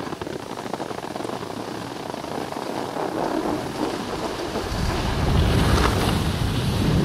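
Wind rushing and buffeting on the microphone of a skier moving downhill, over the hiss of skis sliding on packed snow; the low buffeting grows louder about five seconds in.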